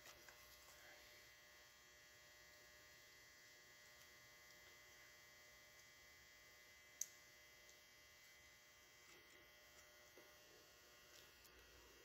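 Near silence: a faint steady electrical hum, with one sharp click about seven seconds in.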